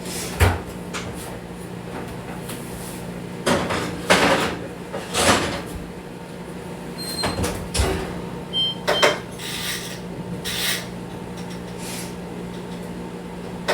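Oven door opened and shut as a baking pan goes in: a series of knocks and handling noises, with a few short high beeps a little past halfway through.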